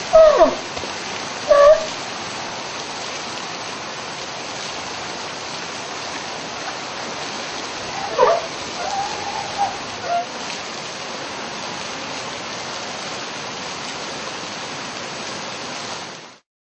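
Steady rush of water pouring into a zoo pool, with a few short sea lion calls, one falling in pitch, near the start and again about eight to ten seconds in. It fades out near the end.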